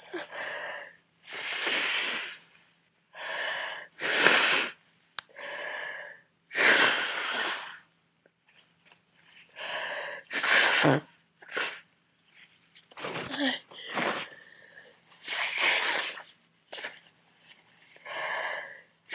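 A man with a heavy head cold sneezing over and over, a fit of uncontrollable, messy sneezes with gasping, wheezy in-breaths between them. The loudest sneezes come about four and seven seconds in.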